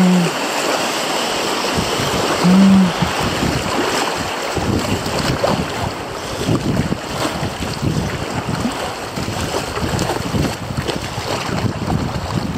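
Fast, choppy river water rushing through small rapids, with wind buffeting the microphone more and more from about four seconds in.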